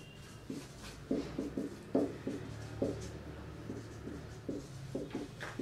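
Marker pen squeaking on a whiteboard as a line of handwriting is written, in short, irregular strokes of a few per second.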